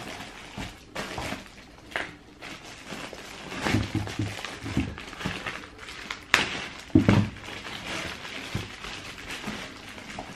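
Handling noises from a cardboard shoebox and trainers: scattered rustles and taps, with a sharp click about six seconds in and a few short soft thumps.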